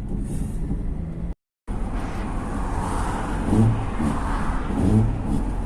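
Ford Transit van driving on the road: steady engine and tyre noise, broken by a short cut to silence about a second and a half in.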